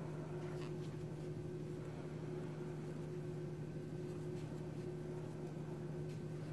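Steady low electrical-sounding hum, with a few faint soft ticks of a metal crochet hook working yarn.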